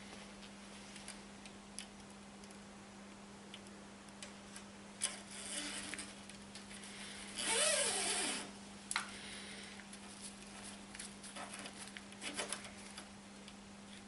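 Faint clicks and rustles of gloved hands handling a dual pivot rim brake caliper and its steel brake cable, with one longer scraping sound lasting about a second a little past halfway as the inner cable is drawn through.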